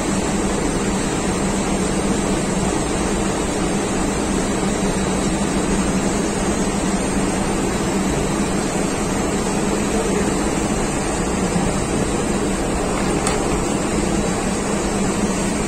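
Steady background drone of running machinery with a constant low hum, and one faint click near the end.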